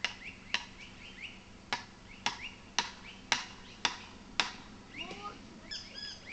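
A tent peg being hammered into the ground: sharp strikes about twice a second, eight in all, stopping about four and a half seconds in. Birds chirp in the background, with a few gliding calls near the end.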